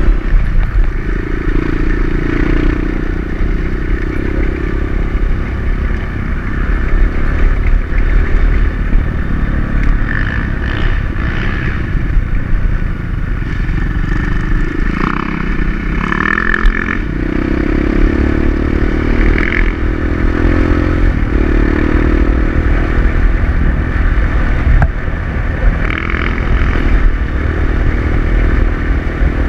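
Kawasaki KLX150 dirt bike's single-cylinder engine running as the bike is ridden, its pitch rising and falling with the throttle.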